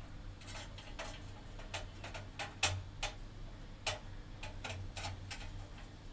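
Irregular clicks and taps of a plastic distribution-board cover being handled and fitted, about a dozen over a few seconds, the sharpest nearly three seconds in, over a low steady hum.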